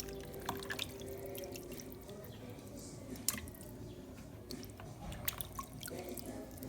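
Water dripping and lightly splashing as raw chicken is washed by hand, with scattered small drips and clicks.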